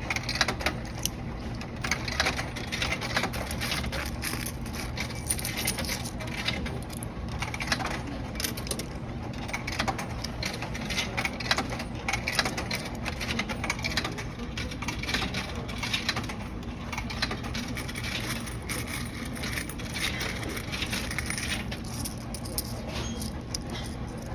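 Quarters and other coins being fed by hand into a self-checkout kiosk's coin slot: a long, irregular run of small metallic clinks as coin after coin drops into the machine.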